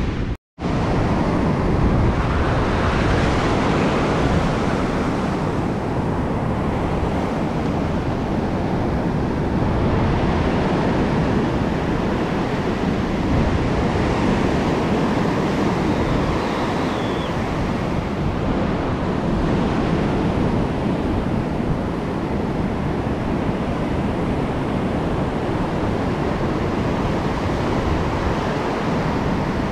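Surf breaking and foam washing up a sandy beach in a steady, continuous rush, with wind buffeting the microphone. The sound cuts out for an instant about half a second in.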